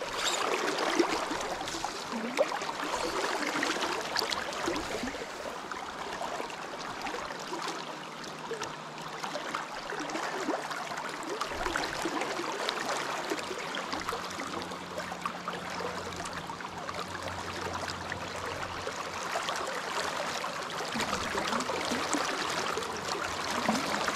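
River current rushing and burbling steadily past the angler standing at the water, a continuous wash flecked with small splashes.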